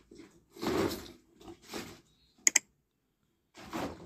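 Subscribe-button animation sound effects: a few short whooshes as the buttons pop in, and a quick double mouse click about halfway through.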